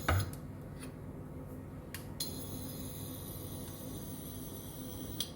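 A few light clinks of a utensil against a cooking pot, scattered over a steady low background hum.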